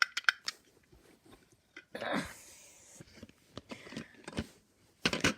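Elevator push buttons clicking as they are pressed: a few sharp clicks at the start and a quick cluster near the end, with a breathy rustling noise about two seconds in.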